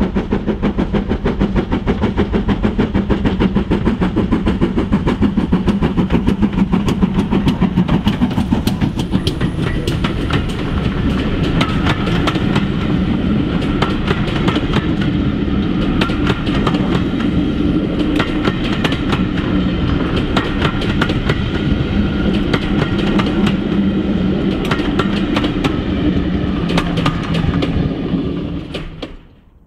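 GWR Manor class 4-6-0 steam locomotive 7802 'Bradley Manor' passing close while working hard, its exhaust beats coming in a fast rattle, followed by the coaches rumbling and clattering over the rail joints. The sound cuts off suddenly near the end.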